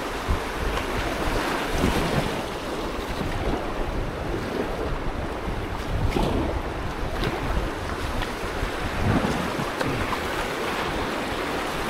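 Choppy river water rushing and slapping around a kayak being paddled, with wind buffeting the microphone in a low rumble and a few brief splashes of the paddle.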